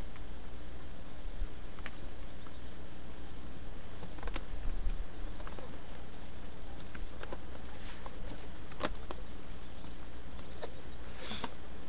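Open-air ambience on a chairlift ride: a steady low hum with scattered faint ticks and clicks, and a brief hiss near the end.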